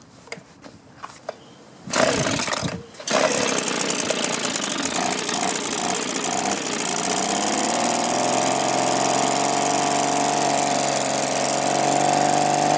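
Handheld Echo two-stroke leaf blower engine being pull-started: a few quiet clicks, a short burst as the cord is pulled, then the engine catches about three seconds in and runs steadily at a constant pitch.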